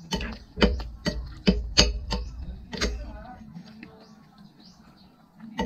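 Metal spoon and fork clinking and scraping against a ceramic plate and a glass dish while food is served and eaten: irregular sharp clicks, thickest in the first few seconds, sparser in the middle, and a cluster again near the end.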